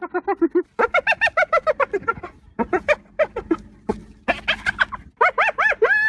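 Hyena giggling: rapid runs of short, pitched, laugh-like notes, several a second, with a brief break in the middle, turning about five seconds in to longer notes that rise and fall in pitch.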